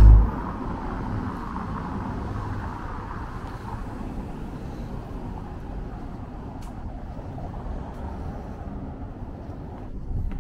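Steady outdoor background noise, an even low hiss with no distinct events, slowly fading.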